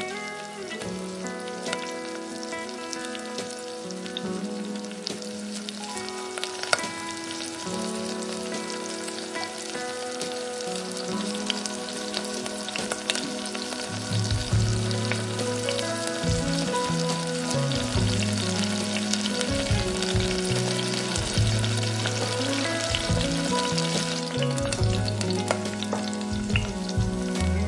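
Urad dal vadas sizzling as they deep-fry in hot oil in a tiny steel pot, with a few light clicks of a spoon. Instrumental background music plays along, a bass line coming in about halfway.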